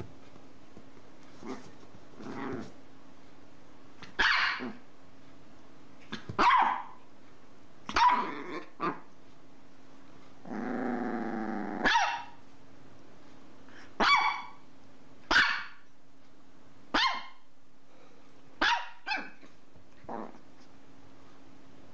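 Chihuahua barking in short, sharp, high yaps, about a dozen in all, during play. About halfway through, a drawn-out growl runs straight into a bark.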